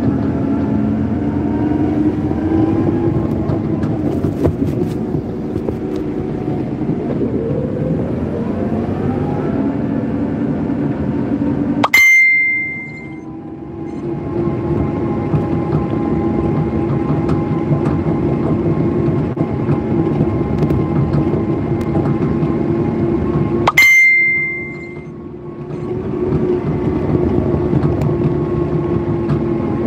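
Forklift running steadily while being driven, its pitch sliding up and back a few seconds in. Twice, about twelve seconds apart, a sharp click with a short high ring cuts in, and the running sound drops away for a second or two before it comes back.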